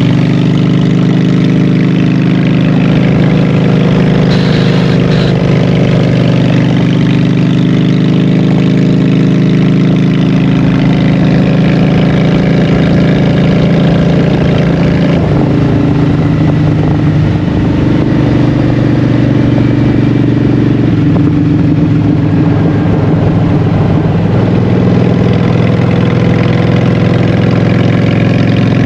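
Honda Shadow 750 V-twin running through Vance & Hines Short Shots exhaust pipes while being ridden. The engine note holds steady, then changes pitch about halfway through and again a few seconds later.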